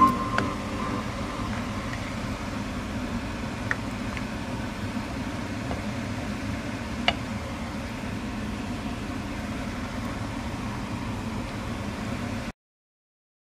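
Steady stovetop cooking noise, a low hum and hiss, as a pan of thick creamy butter chicken sauce cooks, with a few faint pops about four and seven seconds in. It cuts off to silence about a second before the end.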